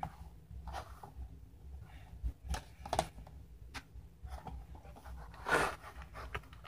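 Cardboard packaging and a small figure being handled on a wooden table: scattered light taps and scrapes, with a longer scratchy rustle about five and a half seconds in.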